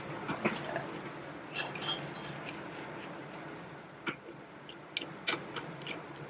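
Faint scattered clicks of tools and engine parts being handled, with a short run of faint high chirps about two seconds in.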